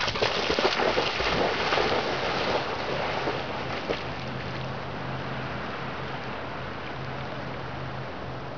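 A Labrador retriever splashing as she charges through shallow lake water, loud for the first two to three seconds. After that, steady wind noise on the microphone and gentle water while she swims, with a faint low drone underneath.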